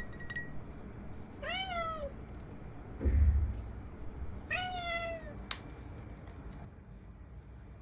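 A cat meowing twice, about three seconds apart, each meow rising then falling in pitch. Between the meows there is a short, low thump, and a single click follows the second meow.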